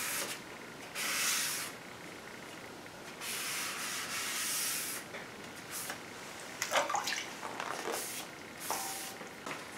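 Wet sanding a car bumper's fresh paint by hand with 2000-grit paper on a sanding block: a couple of long hissing strokes over the wet surface, then lighter, scattered wet rubbing near the end.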